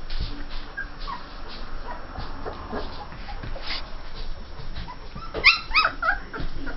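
Two-and-a-half-week-old Saint Bernard puppies whimpering with short squeaks, then two loud, high squeals close together near the end.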